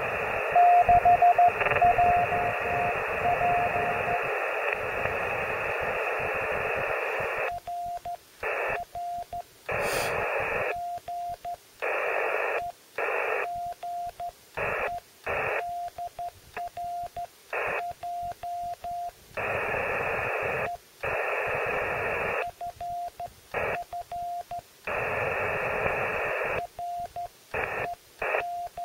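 Amateur-radio transceiver on Morse code (CW): first a Morse signal beeping through receiver static, then from about seven seconds in a clean keyed Morse tone, with bursts of static cutting in between groups of characters.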